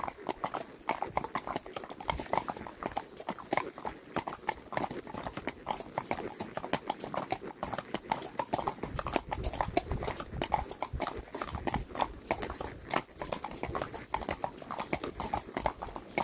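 Hoofbeats of several horses on a wet paved road, a steady, uneven stream of hoof strikes on the tarmac.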